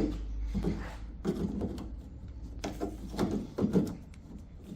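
Irregular clunks and scrapes of hand work on sheet steel as the rusty outer skin is worked loose from the rear door frame at its spot welds.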